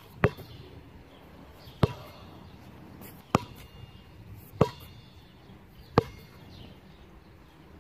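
Sharp thuds about every second and a half, five in all, over a quiet background.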